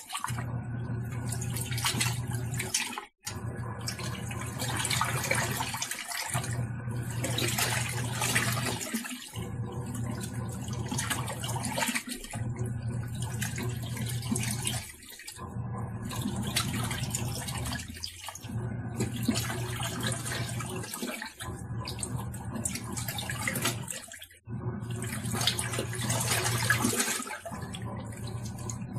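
Tangarus portable washing machine running its wash: motor hum under churning water. The motor stops for a moment about every three seconds and starts again as the wash agitator reverses direction.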